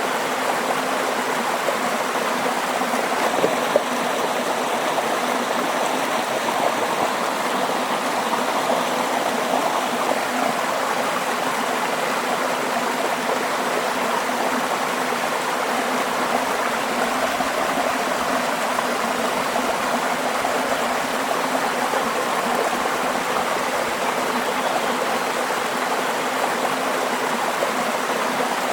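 A stream of running water flowing steadily over rocks, an even rushing and burbling that does not change.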